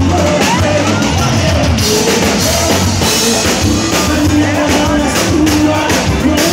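Live sertanejo band playing: a male singer's voice over a steady drum-kit beat and bass guitar.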